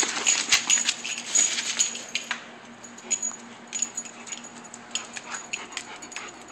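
Golden retrievers playing and scuffling over a ball: a dense run of short, sharp dog sounds in the first couple of seconds, then scattered ones.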